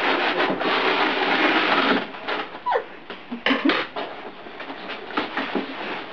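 Wrapping paper and plastic wrap on a large gift box being pulled, crumpled and torn by hand. A dense crackling rustle comes first, then about two seconds in it breaks into scattered sharp crinkles.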